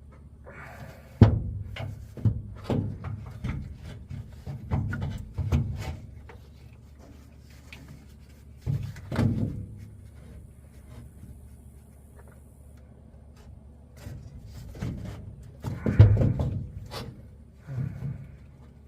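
Irregular knocks and clunks of hands and tools working hose quick-connect fittings loose on a pickup's carbon canister, with the two loudest thumps about a second in and near the end.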